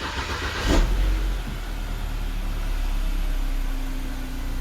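BMW E87 engine running. It swells briefly in speed about a second in, then settles to a steady, smooth idle, now that the blown fuel-injection fuse has been replaced.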